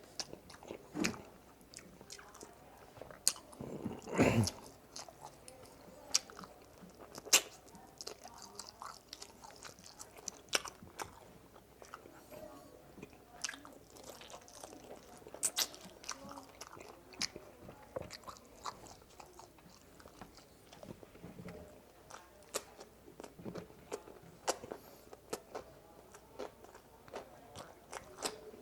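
Close-miked chewing and biting of food, with irregular crunches and wet mouth clicks, and a louder low thump about four seconds in.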